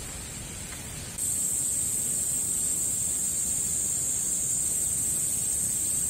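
Continuous high-pitched insect chorus, steady in pitch, growing louder about a second in, over a low outdoor rumble.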